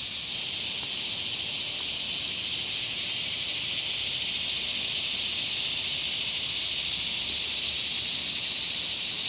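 Cicada chorus: a noisy, steady, high-pitched buzz that holds level throughout.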